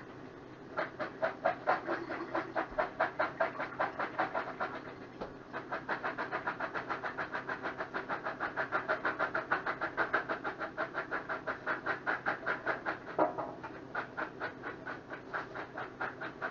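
Hand-cranked can opener being turned around a can: a steady run of squeaky clicks, about six a second, pausing briefly about five seconds in and again about thirteen seconds in.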